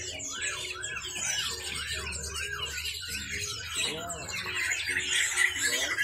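Caged songbirds chirping and calling over one another: a repeated arched chirp about twice a second through the first half, with a fast, even trill starting near the end.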